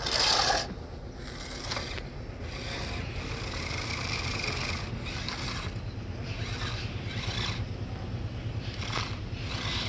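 Small electric motor and plastic gears of a wired toy wheel loader whirring steadily as it drives over wood and sand, with a loud, brief scraping clatter in the first half-second.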